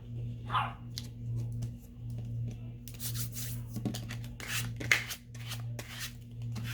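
Sheets of paper being handled: rustling and crinkling, sparse at first and much busier from about three seconds in.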